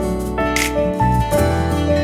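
Background music: held melody notes over a steady bass line, with a light beat about every second and a half.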